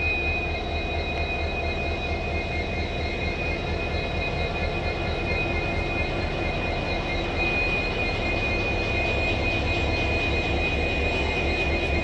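Pair of EMD-built WDG4 and WDG4D diesel-electric locomotives, with two-stroke V16 engines, humming steadily: a constant low engine drone with a steady high whine over it.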